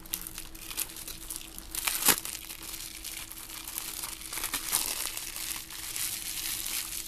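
Plastic shrink wrap being torn and peeled off a Blu-ray case, crinkling irregularly, with one sharp click about two seconds in.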